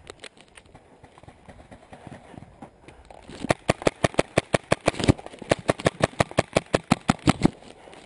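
A magfed paintball marker firing a rapid string of some two dozen sharp shots over about four seconds, starting about halfway through and stopping shortly before the end. Before the shots there is only quieter movement.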